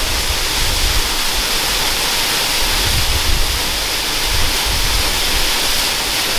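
Jungle waterfall pouring: a steady rush of falling water.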